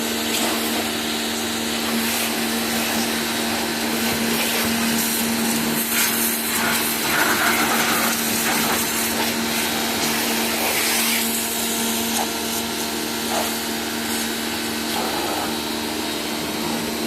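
Electric high pressure washer running steadily, its motor giving a constant hum under the hiss of the water jet, which grows louder for a few seconds around the middle. The running sound is not very loud.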